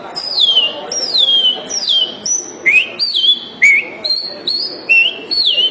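A man whistling an imitation of the male bicudo's (great-billed seed-finch's) song: a run of clear, high notes, most sliding downward and some with a quick upward hook, about two a second.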